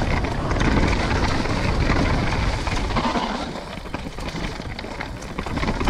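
Downhill mountain bike running over a dirt trail: a rumble of tyres and wind with many small rattles and knocks from the bike, easing off about three seconds in.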